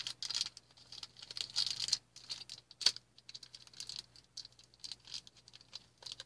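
Small clear plastic baggie crinkling and rustling as it is opened and a small plastic toy figure is pulled out: irregular crackling and clicking, with one sharp snap about three seconds in and fainter handling after it.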